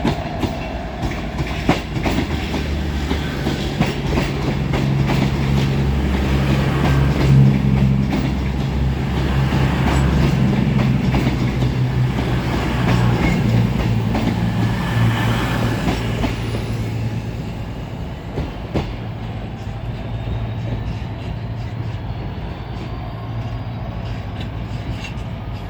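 Diesel train moving through a station, its engine running with a steady low note and its wheels clicking over rail joints. The sound is loudest in the middle, and a faint rising whine comes in near the end.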